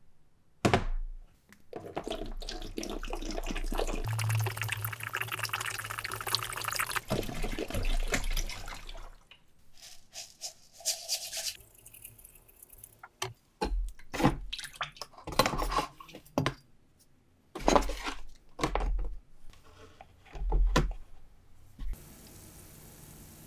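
Water pouring into a plastic tub for several seconds, after a knock as a rusty steel bayonet is laid in it. A brief hiss follows as sodium hydroxide is poured into the water, then a series of knocks and clunks as the bayonet is handled and clamped. Near the end a faint steady hum sets in as the electrolysis rust-removal bath starts.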